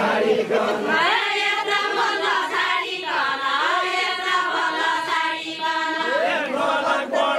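A group of women singing a Deuda folk song together, one long drawn-out melodic phrase that starts about a second in and ends about six seconds in, with crowd voices around it.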